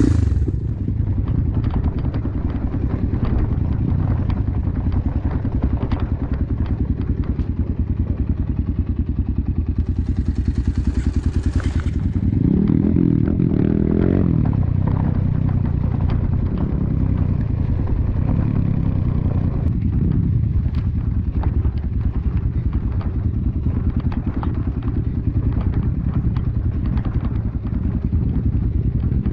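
Dirt bike engine running under way on a rough trail, its revs rising and falling with the throttle, with light rattling and knocks from the bike over the bumps.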